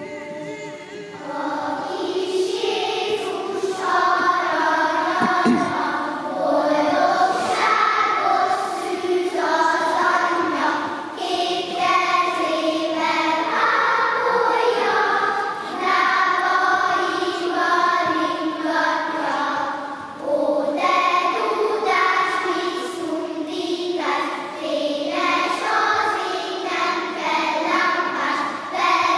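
Children's choir of first- and second-graders singing a song together in a large church. The singing is continuous, with one short pause between phrases about two-thirds of the way through.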